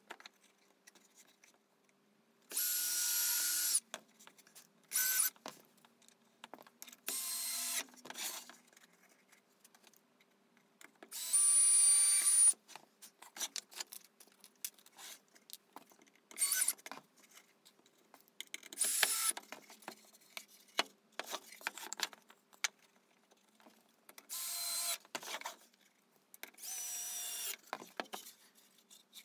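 Cordless drill driving screws into pallet wood in about eight short bursts of whine, each lasting about a second. The longest and loudest burst comes near the middle. Light knocks from handling the wooden pieces fall between the bursts.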